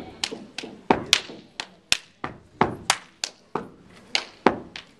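Step dancing: a string of sharp hand claps and slaps against the body mixed with foot stomps, about three or four strikes a second in an uneven, rhythmic pattern.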